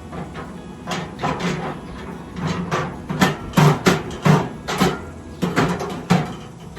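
Metal grill parts knocking and clanking as they are handled: about a dozen irregular knocks, loudest around the middle.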